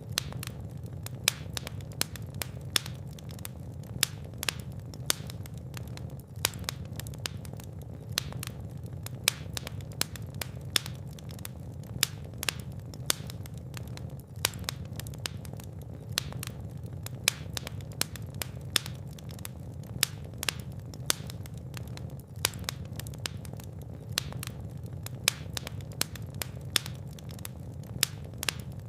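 Fireplace fire crackling, with frequent irregular sharp pops and snaps, some louder than others, over a steady low rumble of the flames.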